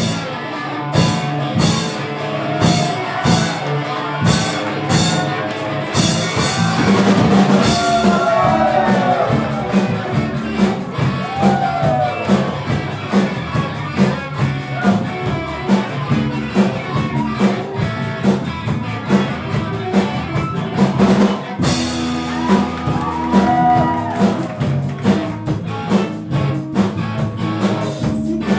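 Live rock band playing: a drum kit keeps a steady beat under electric guitar and singing. There is a momentary break about three-quarters of the way through, then the band comes straight back in.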